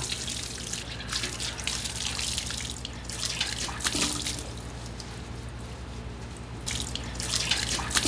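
Water from a hose running onto raw skate pieces in a stainless-steel mesh strainer as they are rinsed by hand, splashing and dripping unevenly. The rinsing washes out the skate's whitish liquid so the flesh turns firm and chewy.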